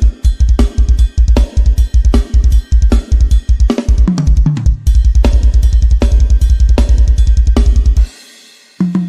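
Sampled drum kit from a karaoke drum sound set, playing a fast groove with rapid, steady bass-drum strokes, cymbals and snare. A falling tom fill comes about four seconds in. The playing stops suddenly about eight seconds in, and toms come back near the end.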